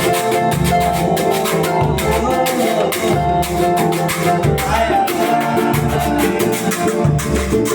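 Live samba music: a band of hand percussion and plucked strings playing a steady groove.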